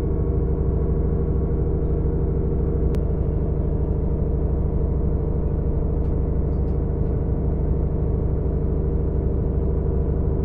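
Steady drone of a regional passenger train's engine heard from inside the carriage: an even low hum with several steady tones. A single sharp click comes about three seconds in.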